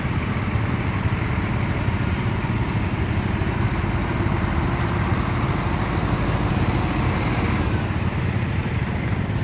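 Heavy truck's diesel engine running steadily as the rig passes slowly close by, a low, even engine noise mixed with motorcycles idling.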